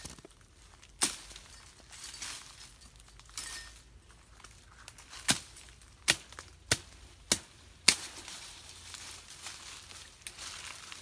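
A series of sharp knocks: one about a second in, then five more in quick, uneven succession between about five and eight seconds in, with a faint rustle between them.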